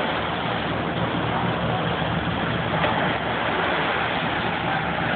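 Steady rushing noise of wind and small waves washing up the sand, with no single event standing out.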